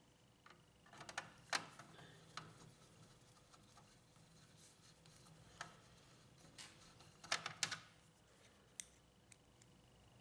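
Faint clicks and taps of plastic and metal laser-printer parts being handled and fitted, in two short clusters about a second in and about seven seconds in, with a few single ticks between.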